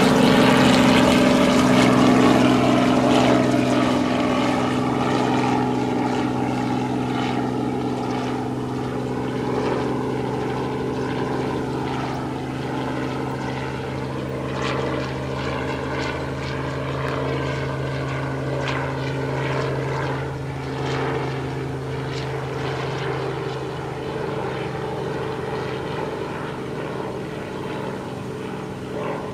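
Robinson R44 II helicopter in flight, its main rotor and six-cylinder Lycoming piston engine making a steady drone that slowly fades as it flies away.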